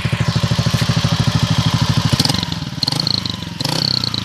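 Honda Fan 125's single-cylinder four-stroke engine revved through a short Roncar ML Competition 'estralador' exhaust: loud, rapid, even exhaust pulses for about two seconds, then dropping back lower and uneven with scattered pops.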